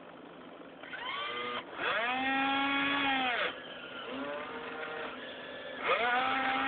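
RC excavator's electric motors whining in several spells as the machine is worked, each one rising in pitch, holding steady and winding down: a short one about a second in, a longer, louder one from about two to three and a half seconds, a quieter one after it, and another starting near the end.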